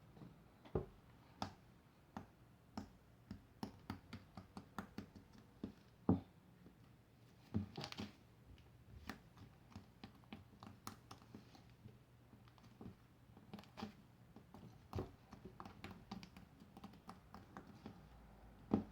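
Hands working homemade slime, giving irregular small clicks and pops, several a second in places, over a faint steady hum.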